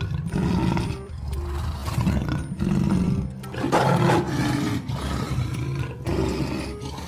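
Lion roaring: a string of deep calls one after another, the loudest about four seconds in, over background music.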